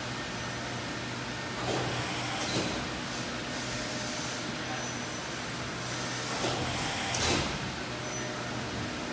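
Deckel Maho DMC-60T 5-axis machining center running, a steady machine hum with four short hissing bursts, two around two seconds in and two around six to seven seconds in.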